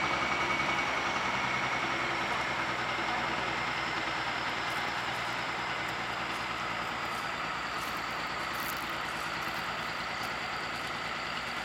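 Narrow-gauge diesel locomotive's engine running at low speed, slowly fading as the locomotive draws away.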